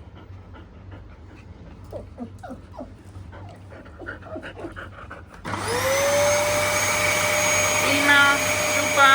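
Puppies whimpering faintly, then about five and a half seconds in a vacuum cleaner switches on, its motor spinning up and settling into a steady whine. Two short yelps sound over it near the end.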